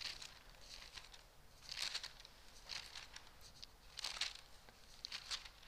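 Paper pages of a book being leafed through, several brief, faint rustles about a second apart.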